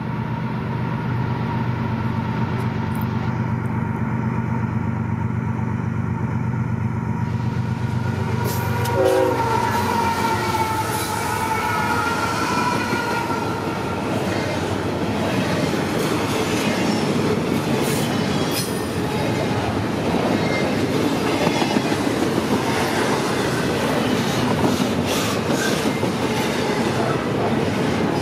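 GE diesel locomotives approaching under power with the horn sounding, the horn and engine tones dropping in pitch as the locomotives pass about nine seconds in. After that, a long double-stack intermodal train rolls by with steady wheel-on-rail rumble, clickety-clack, and some wheel squeal.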